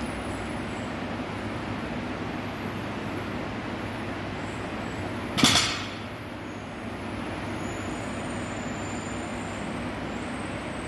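A loaded barbell comes down onto the rubber gym floor once, about halfway through, a single sharp clank of the plates that rings briefly. A steady hum runs underneath.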